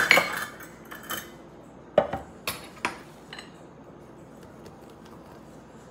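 Metal kitchen utensils clinking: a stainless measuring cup set down by the other utensils and a fork knocking against a plastic mixing container, a few sharp clinks in the first three and a half seconds, then faint fork stirring in pancake batter.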